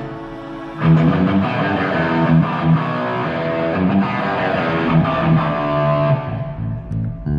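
Electric guitar played through an amplifier, soloing: a held note dies away, then about a second in a continuous run of notes starts and carries on until it thins out near the end.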